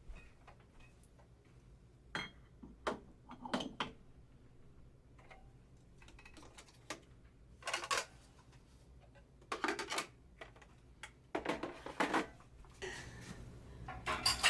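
Mugs and dishware being handled and set down: a scattering of clinks and knocks that comes in small clusters and grows busier near the end.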